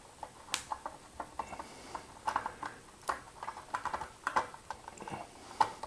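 Irregular small clicks and taps of wires and plastic fittings being handled as the wiring is tucked up into a ceiling fan's switch housing.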